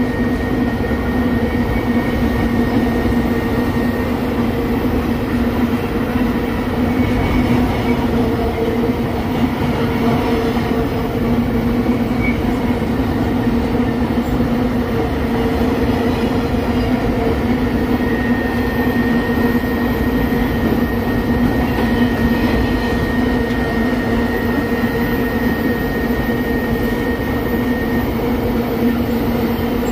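Empty ore hopper wagons of a long freight train rolling past on steel wheels and rails: a steady, unbroken rolling rumble with a constant low hum running through it.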